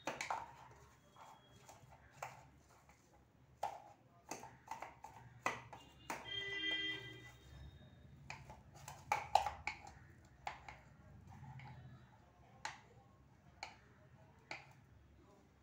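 A stick knocking and scraping inside a small steel tumbler, irregular knocks as wood apple pulp is mashed with spices. A short ringing tone comes about six seconds in.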